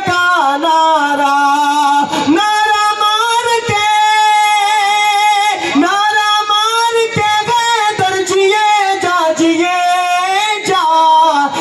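A man singing an Islamic devotional song into a microphone, drawing out long held notes whose pitch wavers and slides between syllables.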